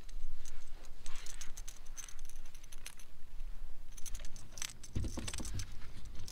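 Light rattling and clicking as the hooked spotted seatrout and tackle are handled on the line, with a low rumble of handling or wind on the microphone from about five seconds in.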